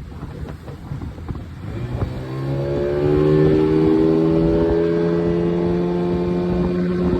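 An engine running; about two seconds in it speeds up, rising in pitch and getting louder, then holds a steady, slightly climbing note.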